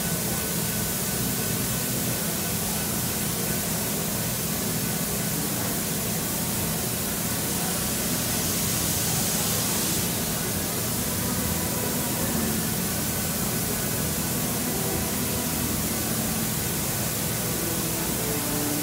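Steady hiss of steam from a parked, fired-up steam locomotive, with a low hum underneath. The hiss grows brighter for a couple of seconds about halfway through.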